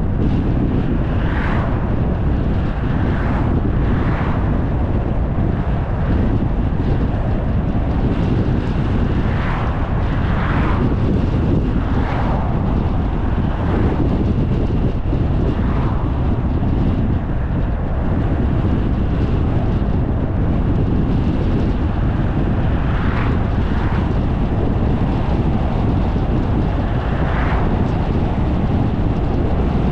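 Steady wind and road rumble on a camera riding in a moving car, with oncoming vehicles whooshing past about eight times.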